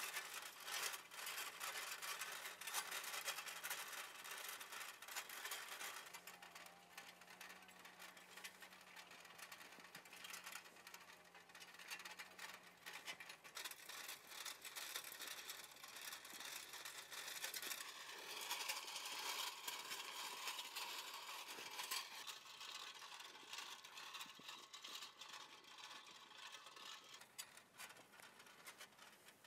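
Spring-wire tines of a hand-pulled Two Bad Cats tine weeder scratching and rattling through loose soil, a dense fine crackle of many small clicks.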